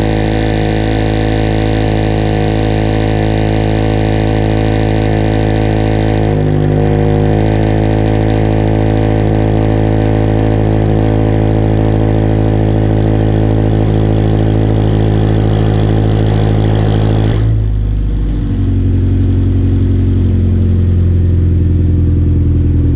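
Subaru BRZ's FA20 flat-four idling on a cold start through an equal-length Ace Anaconda header, catless front pipe and Laguna 100 cat-back exhaust: a loud, steady drone with a brief wobble about six seconds in. About 17 seconds in the note abruptly turns lower and duller.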